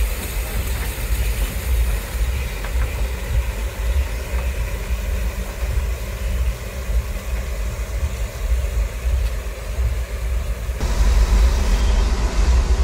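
Steady low rumble and hiss of an 1882 Baldwin oil-fired narrow-gauge steam locomotive standing under steam with its oil burner firing. It gets louder near the end.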